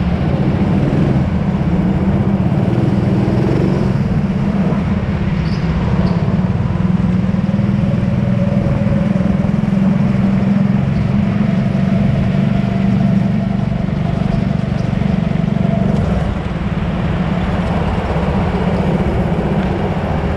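Go-kart engine running continuously at racing speed, dipping briefly in loudness about three-quarters of the way through.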